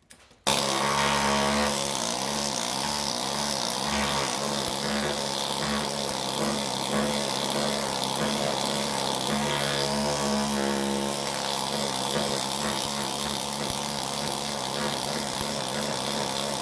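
Needle scaler running steadily, starting about half a second in, its steel rods hammering against thick underseal on a car floor pan. The underseal is so laden in grease that it overwhelms the tool.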